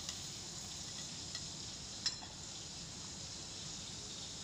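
A few light clicks over a steady low hiss, the sharpest about two seconds in: garlic cloves and whole spices dropping into a stainless-steel grinder jar.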